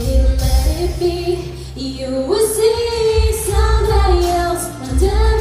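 A woman singing a pop song live into a microphone, over loud amplified backing music with heavy bass.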